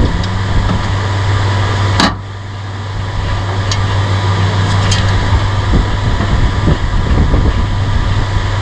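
Off-road race vehicle's engine idling steadily, with one sharp click about two seconds in.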